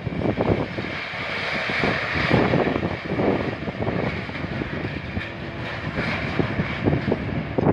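Scrap metal clanking and crashing repeatedly as a Sennebogen material handler's grab digs into and lifts a load from a barge hold, over the steady running noise of the machinery.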